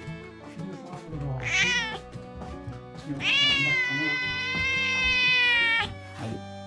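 Tabby house cat meowing to be fed: a short call that falls in pitch about a second and a half in, then one long, drawn-out meow of nearly three seconds. Background music plays underneath.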